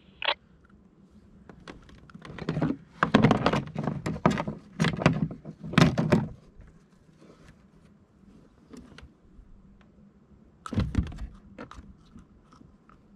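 Handling noise on a plastic kayak: a run of knocks and thuds from about two and a half to six seconds in, another thud near eleven seconds, and small clicks and rattles between, as the angler works with his tackle.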